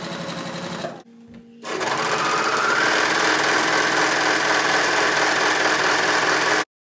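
Janome sewing machine stitching at a steady speed, stopping about a second in. After a short pause a louder machine, an overlocker feeding fabric, runs steadily with a slightly rising whine, then cuts off abruptly near the end.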